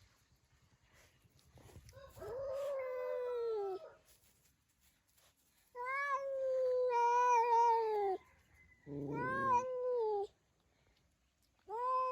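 A cat meowing: four long, drawn-out meows of about two seconds each, separated by short pauses, the last starting near the end.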